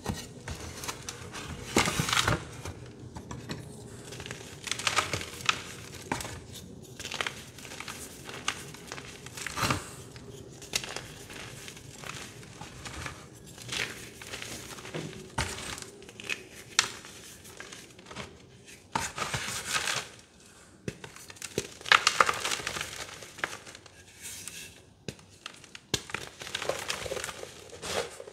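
Hands crushing and crumbling soft, dusty reformed gym chalk: irregular soft crunches and crumbling rustles, with the loudest bursts about two seconds in and again around twenty seconds in.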